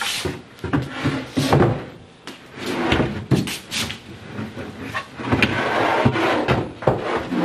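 A cabinet shelf being worked into place on its support pins inside the cabinet box: a run of knocks and bumps with scraping of the shelf against the cabinet sides.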